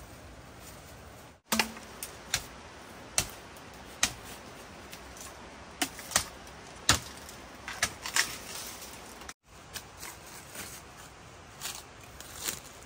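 A blade chopping at bamboo shoots: about a dozen sharp, irregular strikes with uneven gaps between them.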